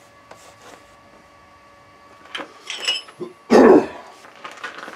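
Metal clinks, one with a short bright ring, about two and a half seconds in, then a loud thud a second later and a few lighter knocks, as tools and metal parts are handled and set down on a plywood board on a milling machine table. A faint steady hum runs underneath.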